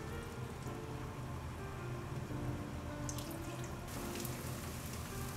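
Water poured from a plastic measuring cup into a frying pan of canned tomatoes and leeks, then the pan's contents sizzling and crackling as they heat from about four seconds in, over soft background music.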